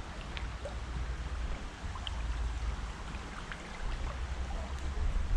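Wind buffeting the microphone in gusts, swelling around the middle and strongest near the end, over a steady wash of water.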